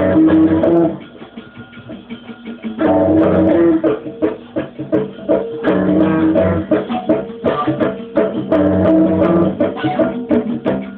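Electric bass guitar played through a guitar amplifier, picking a fast repeating riff in quick plucked notes. A loud phrase opens it, the playing drops away for about two seconds, then the riff comes back in and runs on steadily.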